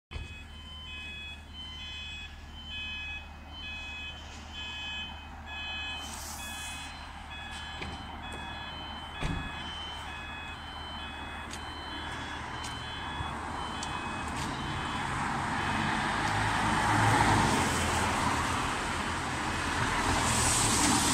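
Railway level crossing warning alarm beeping in a steady repeating pattern. From about two-thirds of the way through, the noise of an approaching car swells beneath it.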